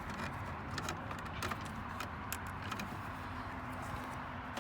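A few light plastic clicks and taps as a switch is worked loose from a truck's dashboard panel, over a steady low hum.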